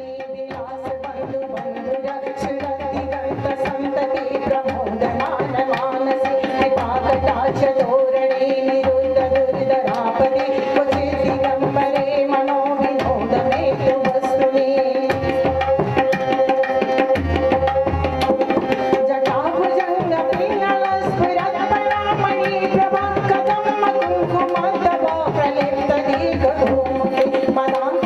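Devotional bhajan music without words: a hand drum keeps a steady rhythm under long held notes and a winding melody. The music fades in over the first few seconds.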